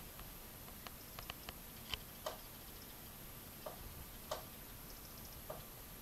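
About nine scattered sharp clicks and taps at irregular intervals, the loudest around two seconds in, over a faint steady hiss.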